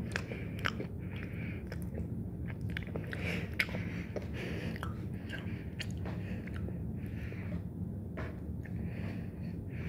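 A person chewing chocolate close to the microphone: irregular small crunches and wet mouth sounds over a steady low hum.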